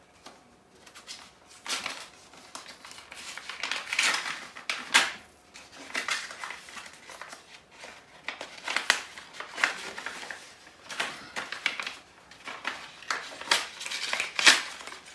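Paper crinkling and rustling in irregular handfuls, as a gift or card is unwrapped and handled, with the loudest rustles about five seconds in and near the end.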